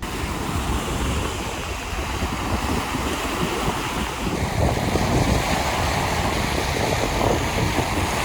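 Sea surf washing on the shore as steady rushing noise, with wind buffeting the microphone.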